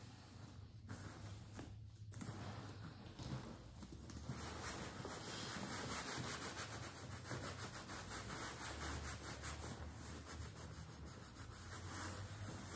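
A sock-covered hand rubbing oil leather conditioner into a pebbled leather handbag: a scratchy rubbing in quick repeated strokes, fainter at first and louder from about two seconds in.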